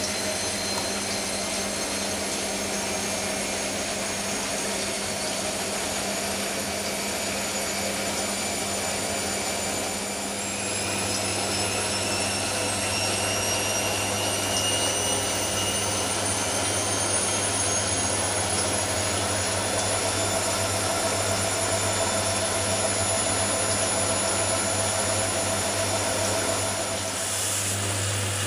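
Hoover Nextra front-loading washing machine spinning between rinses, its motor whining steadily. About ten seconds in it speeds up, the whine slowly rising in pitch as the drum climbs to its 600 rpm spin, and near the end the whine stops.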